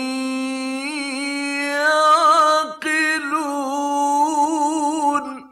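A male Quran reciter's voice in the melodic mujawwad style, holding long drawn-out notes with wavering, trilled ornaments, heard from a 1960s radio recording. The held note cuts off abruptly near the end.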